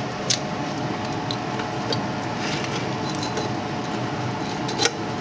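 Fat sizzling on a freshly air-fried smoked pork hock in the open basket, with scattered sharp crackles and pops, over a steady hum.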